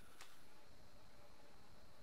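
Quiet workshop room tone with one faint, short click about a quarter of a second in.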